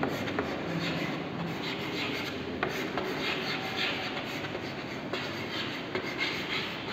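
Chalk scratching across a chalkboard as words are written by hand, with a few sharp taps where the chalk strikes the board.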